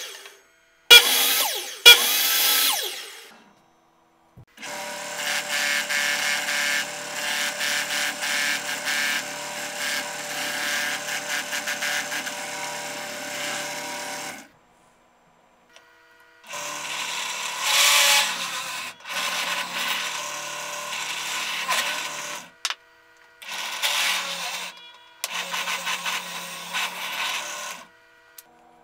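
Woodworking power tools in separate short takes. First, two brief mitre-saw cuts about a second apart, each starting sharply and dying away. Then a sanding drum runs steadily for about ten seconds, and near the end come several short runs of a drill press, one after another.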